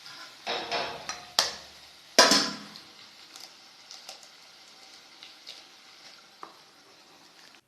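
Eggs being cracked and poured into a hot pan of prawns: a sharp tap, then a burst of sizzling about two seconds in that dies down to a faint sizzle with a few light clinks.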